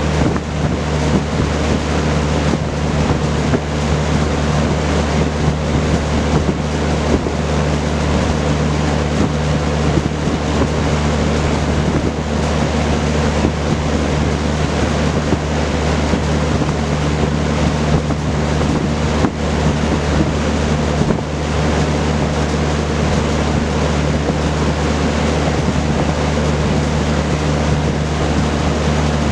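Vintage Kenmore Roll-A-Matic 20-inch reversible box fan running steadily: a rush of moving air from its four-blade propeller over a low, even motor hum.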